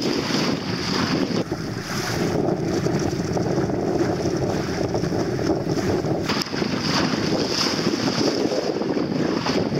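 Wind buffeting the microphone over the steady wash of water along the hull of a small sailboat under sail, the rush rising and falling in gusts.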